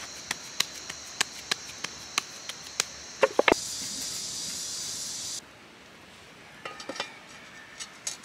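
A steady high insect drone with a run of sharp clicks about three a second and a few louder knocks in the first three and a half seconds. The drone grows louder, then cuts off suddenly about five and a half seconds in, leaving a quieter background with a few scattered clicks.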